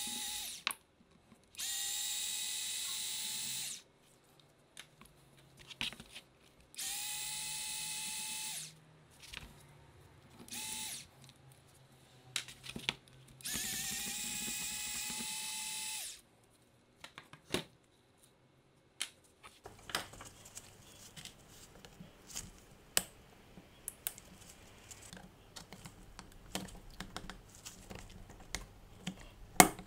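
Electric screwdriver whining in four short runs, each spinning up and lasting about two seconds, as it backs out the screws of a rotary hammer's gear housing. In the second half come light metal clicks and taps of pliers working a retaining ring, with one sharp click near the end.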